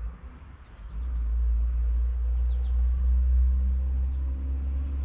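A loud, steady low rumble that comes in about a second in.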